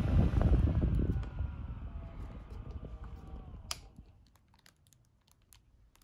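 Small USB desk fan running with a rush of air and a motor whine, then switched off about a second in: the rush drops away and the whine falls slowly in pitch as the blades coast to a stop over about three seconds. A sharp click comes near the end of the spin-down, followed by faint clicks and plastic-wrap crinkles.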